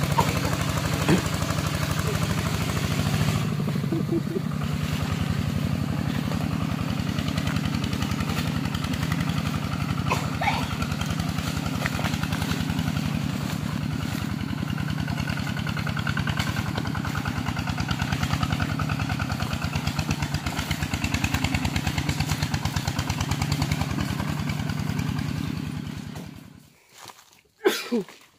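Tractor engine running steadily with a fast, even chugging as it hauls a trailer loaded with sawn timber. The engine sound falls away near the end, followed by a couple of short knocks.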